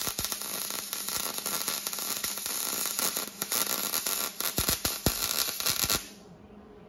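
Electric arc welding on a steel-bar grille frame: the arc crackles and sizzles steadily with a few sharp pops, then cuts off suddenly about six seconds in.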